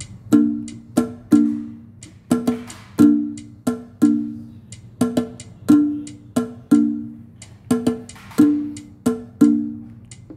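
Drum sounds from the Saudi drum kit of a Yamaha PSR-SX900 arranger keyboard playing a Gulf Sawt rhythm. Drum strokes ring with a low note in a group of three that repeats about every three seconds, with sharper high hits between the groups.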